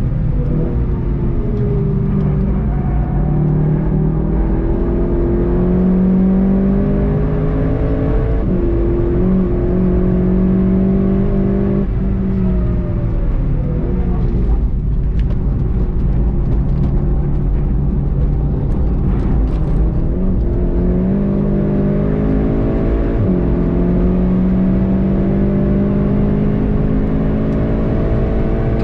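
Onboard sound of a VW Golf 7.5 GTI TCR's turbocharged 2.0-litre four-cylinder at track speed: the engine note climbs under full throttle with an upshift about eight seconds in, falls away as the car slows for a corner around the middle, then climbs again with another upshift near the end.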